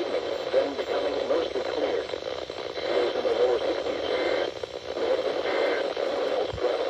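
NOAA Weather Radio broadcast over a receiver: a voice, muffled and hard to make out, under a steady static hiss.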